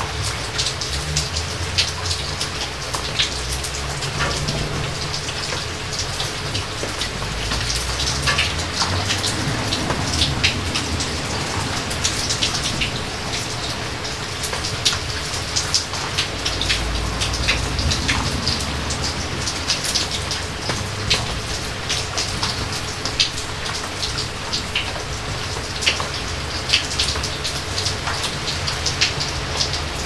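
Steady heavy rain on foliage, with many sharp close drops pattering throughout. Low rumbles of distant thunder come twice, about a quarter and about halfway through. A faint steady 432 Hz tone runs underneath.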